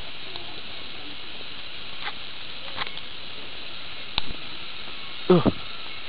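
Steady high hiss, with a few light clicks and a sharper click about four seconds in, then a brief loud pitched squeak just after five seconds.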